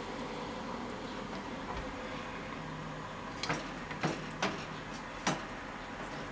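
Bone-in beef short ribs tossed by hand in a stainless steel bowl, knocking against the metal four times in the second half over a steady low hum.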